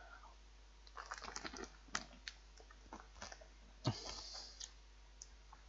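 Chewing a crunchy puffed potato snack, with irregular faint crunches, and a short crinkle of the plastic snack packet about four seconds in.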